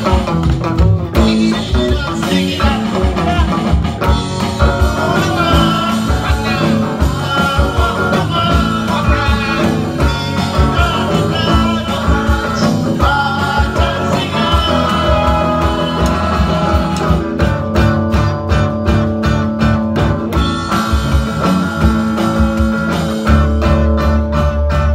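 A live rock band rehearsing: electric bass, acoustic and electric guitars and an electronic drum kit playing a steady beat, with a voice singing. From about two-thirds of the way in, the guitars switch to even, rapid strumming.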